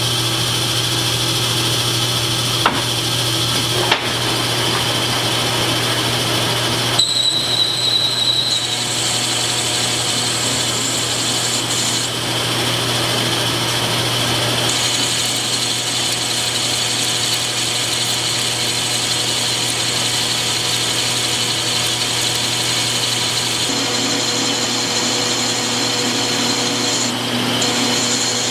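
Metal lathe turning a workpiece with a carbide-insert tool under coolant: a steady motor and spindle hum with a high cutting whine. There are two sharp ticks a few seconds in, and the whine's pitch shifts a few times as the cut goes on.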